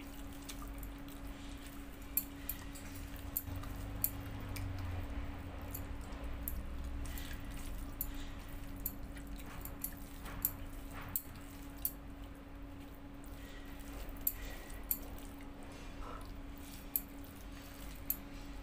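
A person eating rice and chicken curry by hand: fingers squishing and mixing the wet rice on a steel plate, with chewing and many short wet clicks of lips and mouth. A steady low hum runs underneath.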